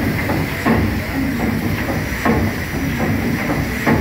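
PS Waverley's three-cylinder triple-expansion steam engine running steadily as it drives the paddle wheels. Its cranks and rods give a rhythmic beat over a continuous hum and steam hiss, with a heavier knock about every second and a half and lighter strokes between.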